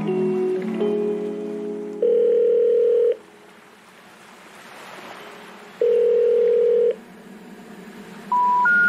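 Electronic intro music, then two long steady beeps like a telephone ringing tone a few seconds apart, and three short beeps rising in pitch near the end.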